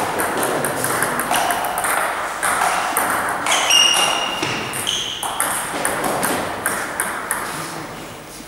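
Table tennis rally: the ball clicking against the rubber bats and the table in quick succession, ringing in a hall.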